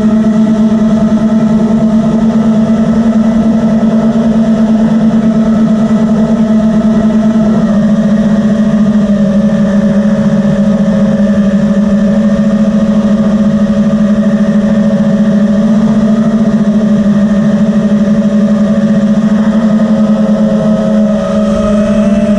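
FPV racing drone's motors and propellers whining loudly and steadily. The pitch dips slightly about a third of the way through and starts to climb near the end as the throttle changes.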